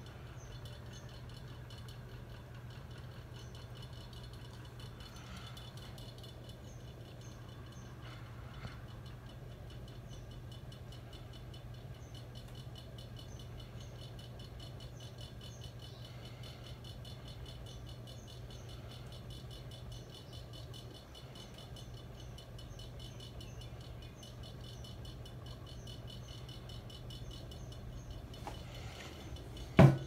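Hampton Bay Minuet II four-blade ceiling fan running steadily, with a low motor hum and a faint, regular ticking rattle as it spins. A single sharp knock comes at the very end.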